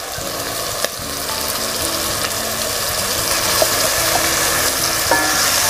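Wet blended spice paste sizzling as it drops into hot oil in a cooking pot, the sizzle growing steadily louder.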